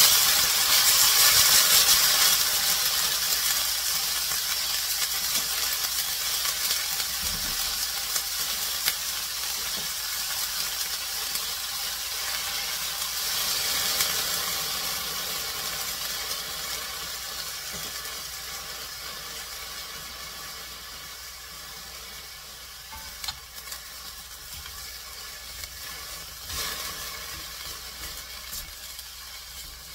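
Soybean sprouts and sliced onion sizzling in olive oil in a stainless steel pan as they are stirred. The sizzle is loudest at first and slowly dies down, with a brief rise about fourteen seconds in.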